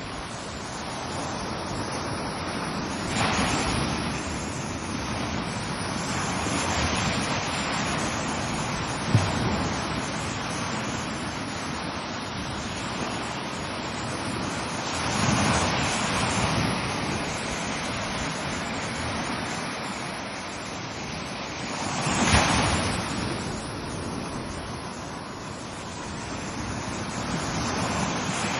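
Ocean waves breaking on a shore: a continuous wash of surf that swells as each wave breaks, about every six to eight seconds, with a short sharp thump about nine seconds in.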